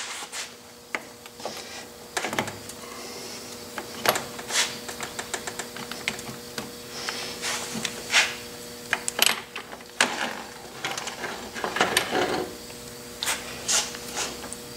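Metal clinks, clicks and knocks from a Logan lathe's apron and the tools used on it as it is unbolted and worked free of the carriage, with a quick run of small ticks about four seconds in, over a faint steady hum.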